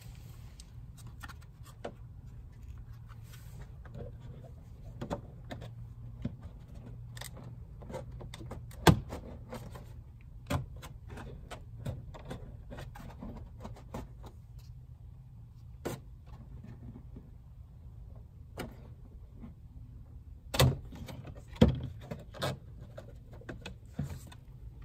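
Slip-on splash guard being fitted by hand onto a car's front wheel-arch lip: scattered clicks, knocks and scraping over a low steady rumble. One sharp knock stands out about nine seconds in, and two more come near the end.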